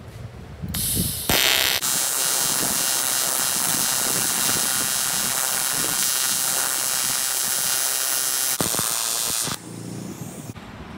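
TIG (argon) welding arc on an aluminium crankcase, buzzing steadily. It strikes with a short burst about a second in and cuts off about a second and a half before the end.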